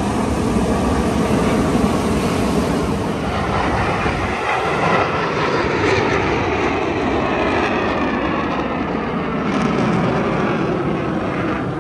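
Loud steady engine rumble mixed with wind noise, with faint whines rising and falling in pitch in the second half.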